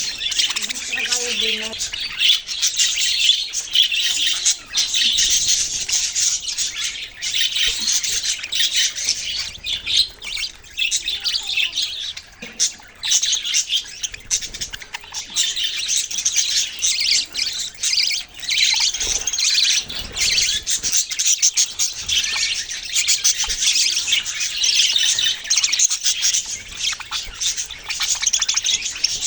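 Many small birds chirping and squawking at once in a dense, unbroken chatter.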